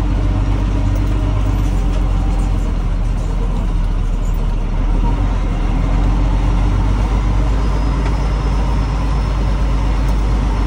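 Diesel engine of a Peterbilt 389 roll-off truck running steadily under way, heard from inside the cab, with road noise from the rutted dirt track.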